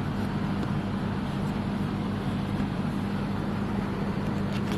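Steady background hum and noise with no distinct events: a constant low hum under an even hiss.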